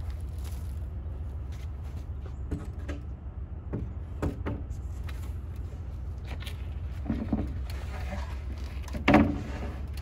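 Scattered knocks and clatter of lumber and tools being handled, over a steady low hum; the loudest knock comes near the end.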